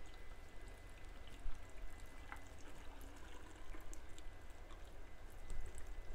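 Salt brine poured in a steady stream from a stainless steel jug into a large glass jar of vegetables.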